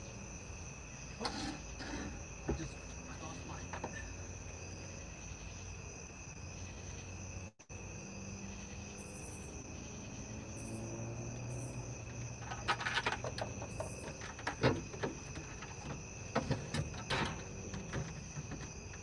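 Scattered knocks and clatter of a plastic five-gallon bucket and its fittings being handled and set into a small fridge, busiest in the last third. A steady high-pitched whine and a low hum run underneath.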